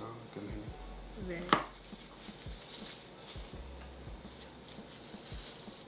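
Knife slicing garlic cloves thinly on a wooden cutting board: slow, irregular soft taps of the blade on the board, with one sharper knock about a second and a half in.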